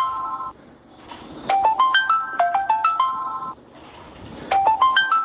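A mobile phone ringtone playing: a short tune of quick, bright notes stepping up and down, repeating about every three seconds.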